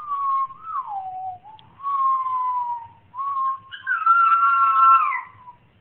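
Chinese Crested Powderpuff dog howling: three long, high notes with short breaks between them. The first slides down in pitch about a second in, and the last carries a second tone above it.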